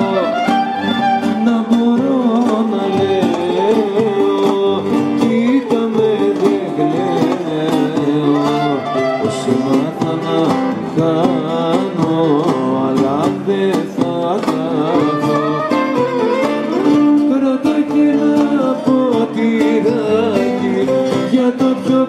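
Live Greek folk band playing through PA speakers: bouzoukis, violin and guitar carrying a winding melody over a steady toumbeleki hand-drum beat.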